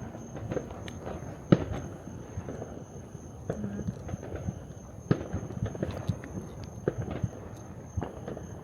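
Fireworks going off: scattered sharp pops and crackles, the loudest about a second and a half in, with more strong pops around five, seven and eight seconds in.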